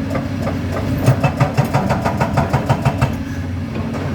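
Doosan DX225 excavator working: its diesel engine runs under a quick, even knocking, about six blows a second, that stops about three seconds in.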